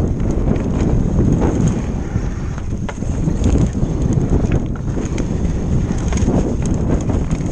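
Wind buffeting the microphone while a Giant enduro mountain bike rides over a snow-covered trail: a steady low rumble from the tyres and wind, with many small clicks and rattles from the bike over bumps.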